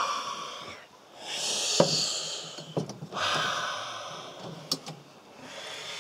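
A man breathing out heavily in long, hissing sighs, about three of them, as he soaks in the hot bath, with a few small clicks between them.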